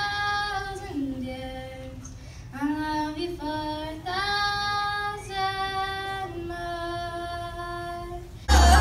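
A child singing a slow ballad solo through a hand-held microphone, holding long notes that slide between pitches. Near the end it cuts off abruptly into loud music.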